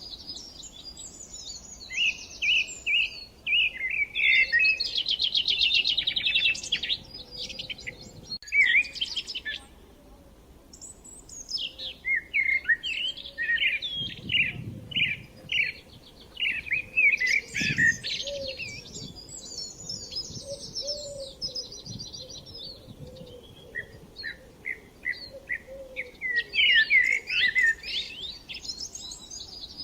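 Several songbirds singing at once: overlapping phrases of high chirps, whistles and rapid trills, with a short lull about a third of the way through.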